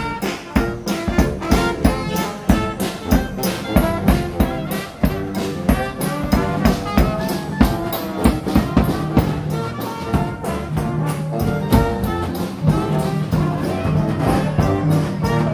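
Upbeat brass band music with a steady drum beat, brass instruments carrying the tune.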